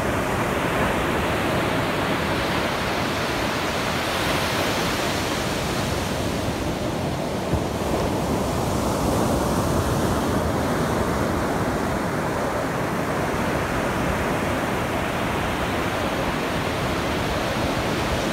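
Ocean surf breaking and washing up a sandy beach: a steady rush of water noise that swells and eases as the waves come in.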